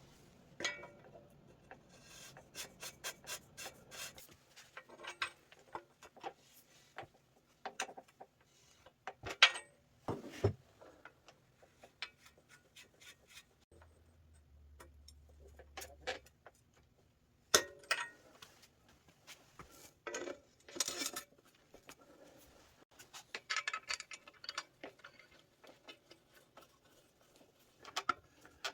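Intermittent workshop handling sounds: scattered clicks and light knocks mixed with short stretches of rubbing or scraping, with a couple of sharper knocks.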